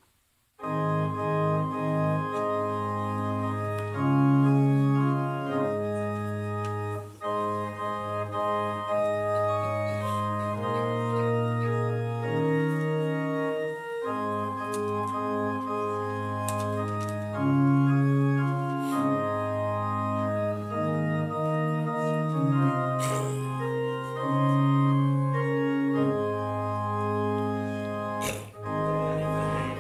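Church organ playing a slow piece in sustained chords that change every second or two, beginning about half a second in.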